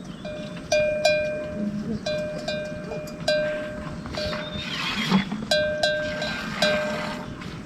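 A metal livestock bell clanking at irregular intervals, each clank ringing briefly, as an animal wearing it moves about.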